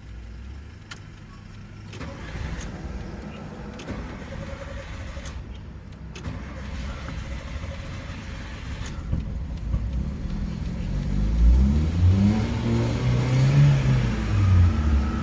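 Car engine sound rising and falling in pitch, growing much louder over the last few seconds, with a few sharp clicks in the first half.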